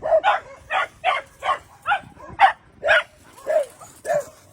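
A dog barking over and over in short, high yips, about ten barks at an even pace of two to three a second.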